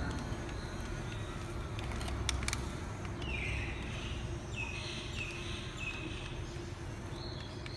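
Remote-controlled long-reach CAT 320D model excavator working, its electric motors giving short high-pitched whines one after another as the boom and arm move, over a steady low hum, with a few sharp clicks about two seconds in.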